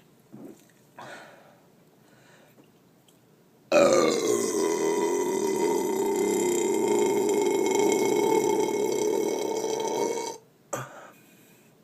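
A person's long, loud belch lasting about six and a half seconds, brought up after drinking Diet Coke. It starts about four seconds in, dips slightly in pitch, then holds steady before cutting off. Two short faint sounds come before it and a brief one follows.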